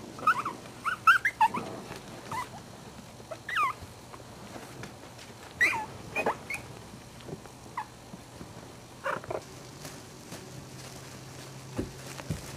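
Maltese puppies giving short, high squeaks and whimpers as they play together. There is a quick cluster of calls in the first second and a half, then scattered single squeaks every second or two.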